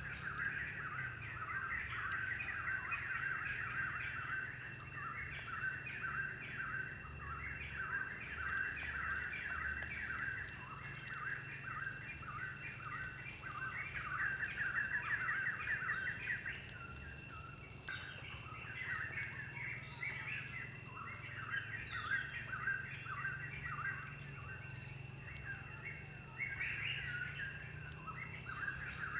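Wild birds chirping in a continuous chorus of quick, repeated high notes, with a faint steady high-pitched whine beneath.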